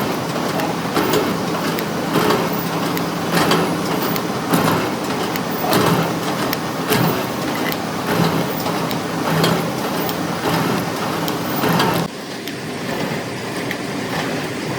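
Heavy machine noise with a regular knock about every second and a bit, typical of a large workpiece turning under a cutting tool. About twelve seconds in the sound cuts abruptly to a quieter, steady machine noise.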